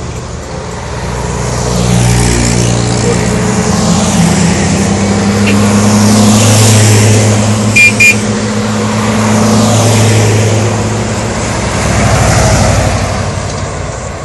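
Old military vehicles driving past one after another, among them DAF YA126 army trucks: engine sound swelling and fading with each pass. Two short, loud beeps a little after halfway.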